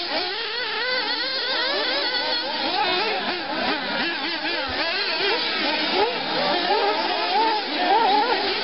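Several 1:8 scale nitro off-road RC buggies' small two-stroke glow engines revving and easing off as they race, their pitches overlapping and rising and falling constantly.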